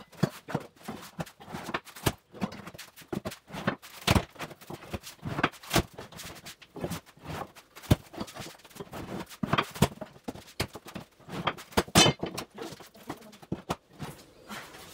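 Irregular knocks, clunks and taps of old wooden floorboards being pried up with a steel pry bar, with a few louder knocks among them.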